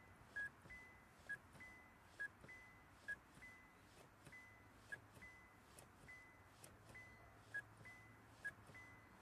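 Faint two-tone electronic car warning chime, a short lower beep then a higher one, repeating a little faster than once a second, with light clicks.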